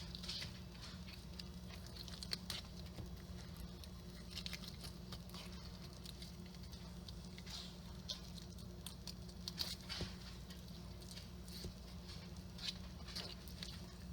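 Fillet knife cutting and scraping through a small panfish fillet: irregular soft scratchy strokes and ticks, with a few sharper ones, over a steady low hum.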